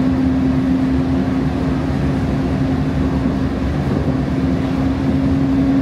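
Siemens S700 light rail car running along the track, heard from inside the car: a steady rumble of wheels on rail with a steady low hum over it.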